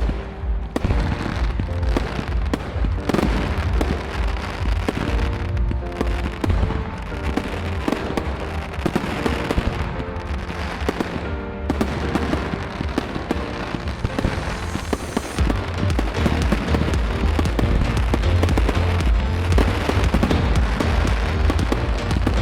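Fireworks display: many shells bursting and crackling in quick succession, with music playing underneath.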